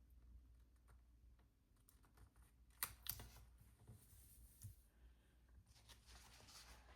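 Faint handling of paper stickers on a planner page: a few soft clicks and ticks, two sharper ones about three seconds in, and a light paper rustle near the end, otherwise near silence.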